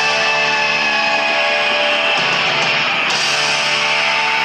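Heavy rock music led by electric guitar, playing steadily with long held notes.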